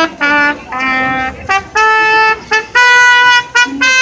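Trumpet playing a slow melody of held notes, each about half a second long, joined by short pickup notes and brief gaps.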